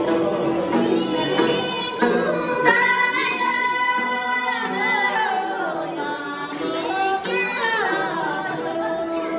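Women singing a Tibetan gorshey circle-dance song, a melody of long held notes that bend and waver.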